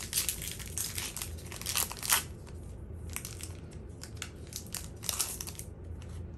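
Foil wrapper of a Topps Chrome baseball card pack crinkling and tearing as it is ripped open by hand. The crackling comes in spells, thickest in the first two seconds and again about five seconds in.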